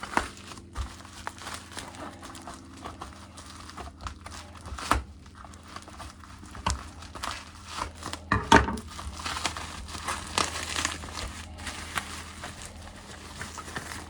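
Packaging crinkling and rustling as it is handled and pulled away from model railway coaches, with irregular sharper crackles and a few light knocks.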